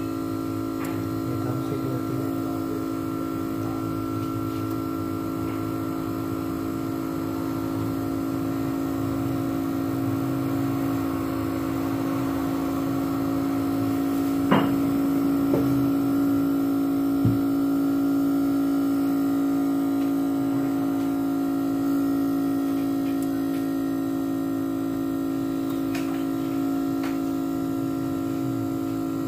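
Steady electric hum from a running phone-screen separator machine, several pitches held together, with a few light clicks of handling about halfway through.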